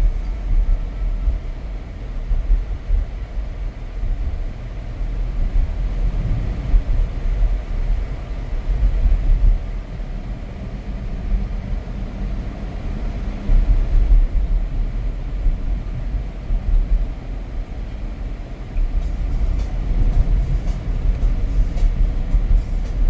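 Low, uneven rumble of a Tesla Model Y, an electric car, driving on a snow-covered, icy road: tyre and road noise with no engine sound.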